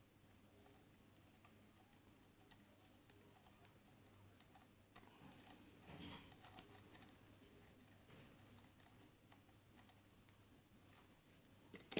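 Near silence with faint, scattered light clicks and scrapes of a lock pick probing the pins of a Keso 2000 high-security lock, with a slightly louder rustle about halfway through.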